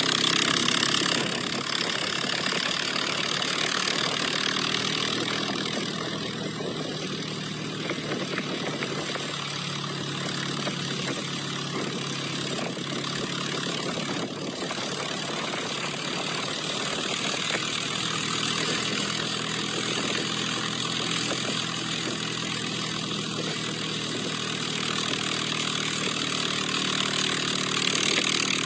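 Engine of the vehicle towing a ski-mounted armchair over snow, running steadily at low speed under a constant hiss.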